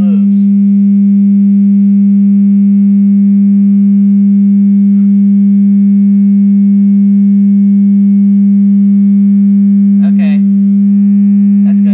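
Loud steady 200 hertz sine tone from a phone tone generator played through a loudspeaker, held at the bottle's resonant frequency to drive pressure waves onto the candle flame; it cuts off suddenly at the very end.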